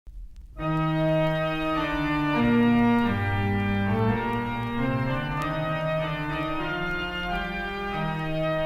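Organ playing slow, sustained chords that shift every second or so, starting about half a second in.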